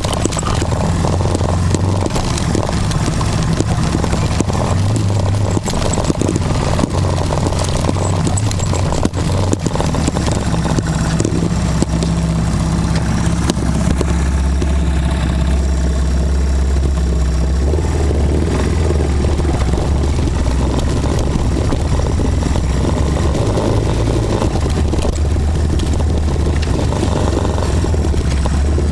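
Off-road vehicle engine running steadily at low revs while driving over a rough, rocky dirt trail, its pitch stepping up and down several times. Frequent knocks and rattles come from the vehicle jolting over the rocks.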